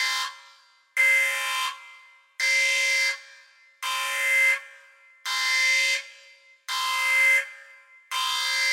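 Synthesized sci-fi spaceship alarm: a buzzing, horn-like blast at one steady pitch, repeated about once every second and a half, each blast under a second long with a short echoing tail.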